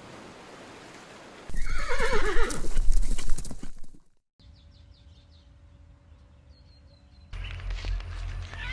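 A horse whinnying: one loud neigh that falls steadily in pitch, starting about a second and a half in and lasting about two seconds. After a brief cut, faint bird chirps are heard, then from about seven seconds a loud low rumbling noise.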